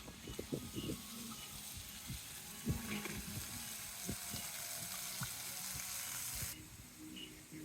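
A steady hiss with scattered soft low knocks, cutting off suddenly about six and a half seconds in, over faint background music.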